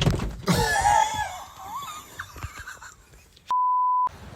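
Loud wavering cries for the first second or so, then near the end a flat 1 kHz censor bleep lasting about half a second, with all other sound cut out under it.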